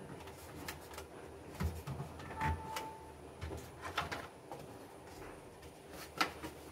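Scattered clicks and light knocks of hard plastic laptop parts being handled, as the Dell Inspiron 15 3000's black bottom cover panel is picked up and laid onto the base. A sharp click near the end is the loudest.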